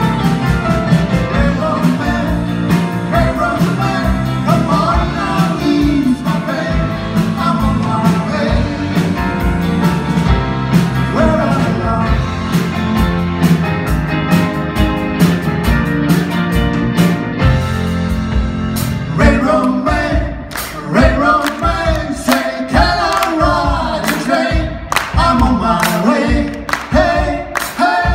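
Live rock band playing: electric guitars, electric bass, drums and keyboard under male lead singing. About two-thirds in, the band thins out to a strong beat of sharp, regular hits with the singing carried over it.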